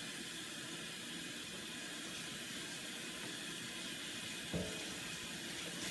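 Hot water running from a kitchen tap in a steady hiss as a microfiber cloth is wet under it, with a brief thump about four and a half seconds in.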